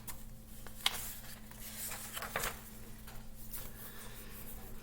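Faint paper rustling and a few small clicks as a picture book's pages are handled and turned, over a steady low hum.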